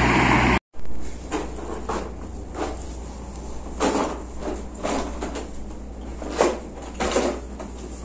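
Loud, even outdoor noise cuts off abruptly about half a second in. It gives way to a quieter room where light knocks and clatters come every half second to a second over a low, steady hum.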